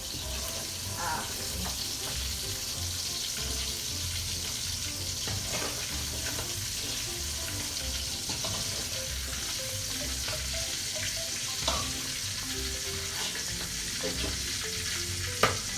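Thin eggplant slices frying in oil in a pan: a steady sizzle, with a few light knocks. The slices are being lightly fried just to soften them, not to brown them.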